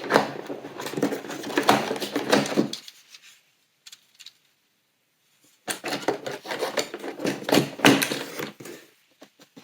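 Cardboard and plastic packaging of an advent calendar being handled and opened, a dense run of rustling and small clicks. It comes in two bouts with a pause of a few seconds between them.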